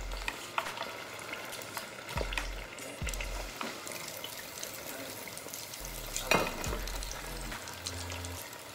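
Breaded mozzarella sticks sizzling in the hot oil of a countertop deep fryer, a steady frying hiss. A few sharp clicks come from metal tongs moving the sticks around in the oil.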